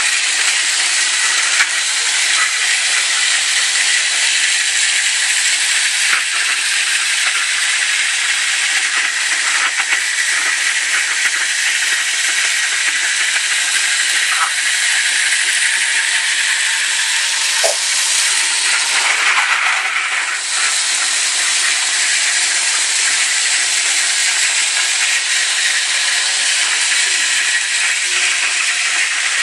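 Steady, loud hiss that does not change, with a few faint clicks and light knocks here and there.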